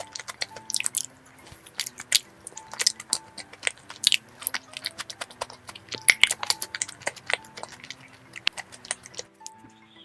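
Close-miked biting and chewing of a dessert: wet mouth clicks and small crunches at an irregular pace, over quiet background music.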